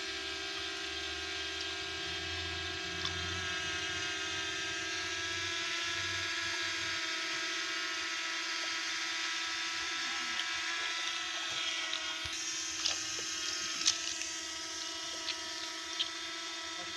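A steady mechanical whine made of several constant pitches, like a small motor running. A few short clicks come in the second half.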